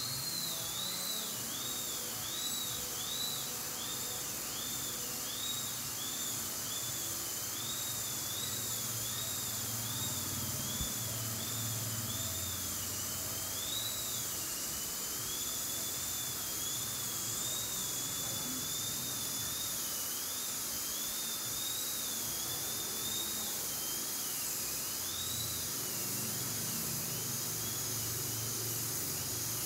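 High-speed dental drill whining at a high pitch that repeatedly dips and rises, over a steady hiss, while drilling into a tooth during root canal treatment.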